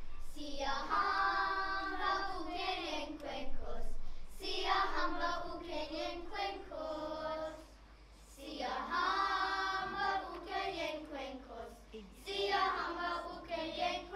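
A group of children singing together, in four phrases with short pauses between them.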